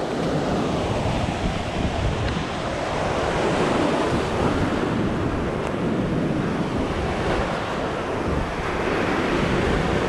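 Ocean surf washing onto a sand beach, a steady rushing noise, with wind buffeting the microphone.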